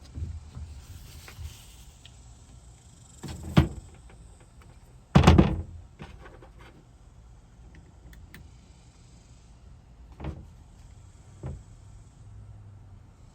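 A few scattered knocks and thumps of wooden furring strips being handled and fitted against the van's body, the loudest and longest about five seconds in, with smaller ones near the end.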